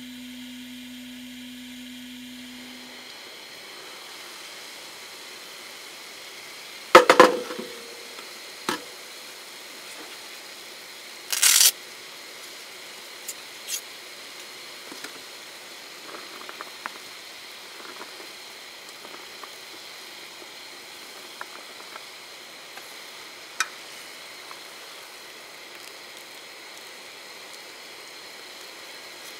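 Camp cooking: a steady hiss under a clank that rings briefly about seven seconds in, a smaller knock, and a short loud sizzle-like burst around eleven seconds, then scattered light taps and clicks. A low hum stops about three seconds in.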